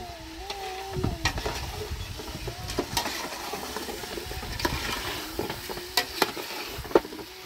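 Meat and tomato sizzling as they fry in a steel pot on a gas burner, stirred with a metal spoon that clinks sharply against the pot several times.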